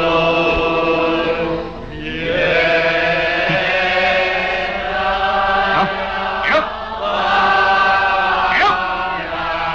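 Choir singing an Orthodox memorial chant in long held chords, with a brief break about two seconds in.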